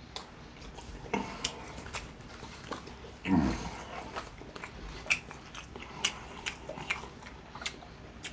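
Close-miked eating of crispy fried chicken: biting, chewing and lip-smacking, with sharp wet clicks spread throughout. Two short low falling sounds come about a second in and a little over three seconds in.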